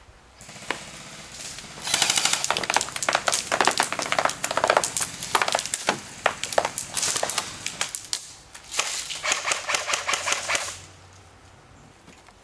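Airsoft guns firing rapid full-auto bursts: a dense, fast clatter that starts about two seconds in, breaks briefly, then stops shortly before the end.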